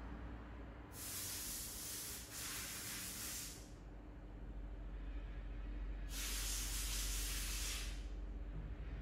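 Compressed air blowing dust out of a clogged laptop CPU cooler. Two hissing blasts come almost back to back about a second in, then a longer one about six seconds in.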